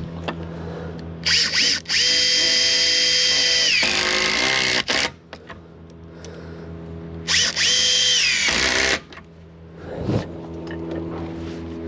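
Cordless drill running twice: a run of about two and a half seconds with a short break just after it starts, then a shorter run of about a second and a half later on. Each run has a steady high whine that drops in pitch as the motor stops.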